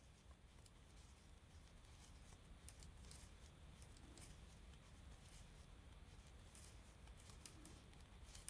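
Near silence with faint, irregular clicks of wooden knitting needles as stitches are worked.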